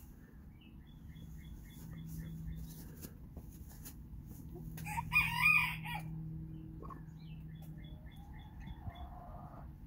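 Hens in a nest box vocalizing: two runs of soft, quick high-pitched clucks, about four a second, and a louder squawk about five seconds in.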